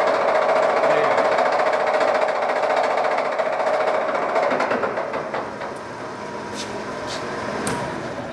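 Lion 20 x 40 inch gap bed lathe headstock gearbox running at a faster speed in its red range, a loud rhythmic gear clatter from one gear with roughness between a couple of teeth, as far as the owner can see. The lathe winds down about five seconds in, with a few clicks near the end.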